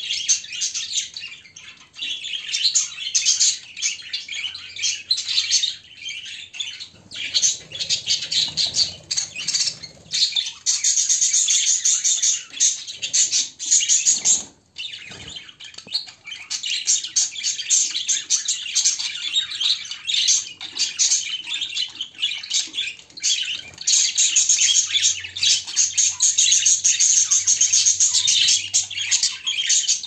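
Budgerigars chattering and warbling together: a dense, continuous stream of fast chirps and twitters that breaks off briefly about halfway through.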